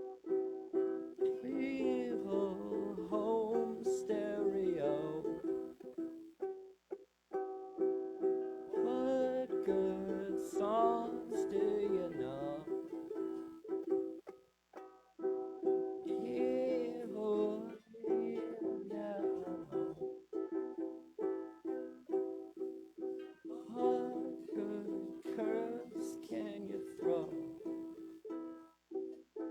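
Guitar strummed in sustained chords, with a voice singing wordless phrases over it several times.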